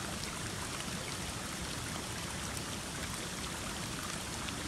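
Running water of a stream: a steady, even rush with no breaks.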